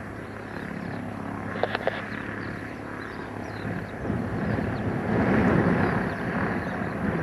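Light aircraft's propeller engine running during a touch-and-go, a steady drone that swells louder about four seconds in as power comes on for the climb-out.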